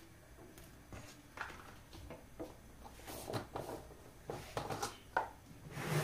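Light kitchen handling sounds: a scattered series of soft knocks and clinks from utensils and containers being moved and set down, growing louder toward the end.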